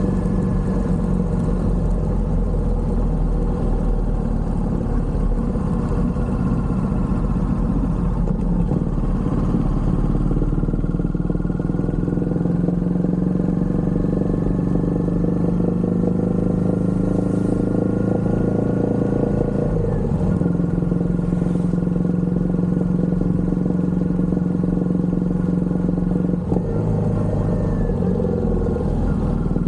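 Royal Enfield Hunter 350's single-cylinder engine and exhaust running steadily while being ridden. The engine note steps in pitch a few times as the speed changes, with a short dip near the end.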